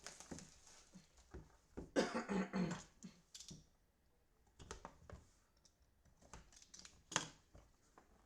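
Sports card box and packs being handled and opened on a table: scattered light clicks and taps, with a burst of rustling or tearing about two seconds in.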